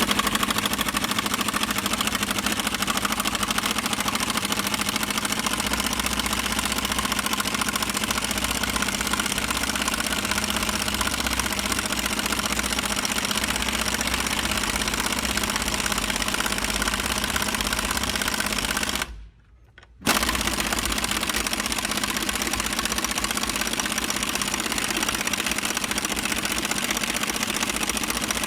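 A machine running steadily with a dense, even rattle. It cuts out for about a second roughly two-thirds of the way through, then resumes unchanged.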